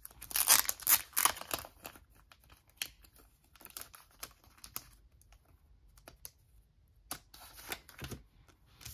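A thin clear plastic card sleeve crinkling and crackling as a photocard is pulled out of it. The crackling is densest and loudest in the first second and a half, then comes back as scattered clicks and short rustles.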